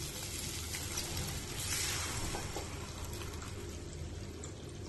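Thin gram flour batter pouring into a hot pan of sautéed onion and tomato, sizzling steadily; the sizzle swells for about a second, beginning about one and a half seconds in.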